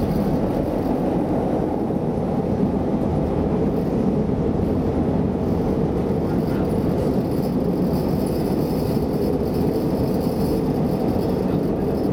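Steady rumble and wheel noise of a rapid-transit train running at speed, heard from inside the passenger car.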